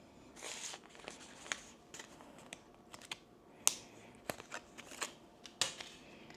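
Rustling and a series of sharp clicks and taps from tools and packaging being handled, with the loudest click a little past the middle.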